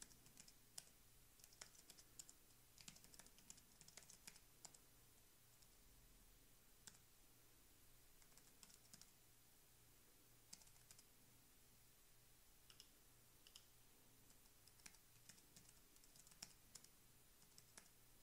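Faint computer keyboard typing in short runs of key clicks with pauses between them.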